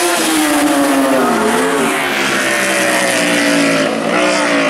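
1000cc four-stroke superbikes running at racing speed past the barriers. One engine note drops in pitch as the bike goes by in the first second and a half, then more bikes come up with engines wailing.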